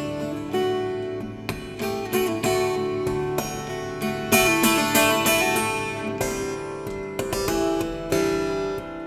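Twelve-string acoustic guitar played solo, a run of plucked and strummed chords and single notes that ring on.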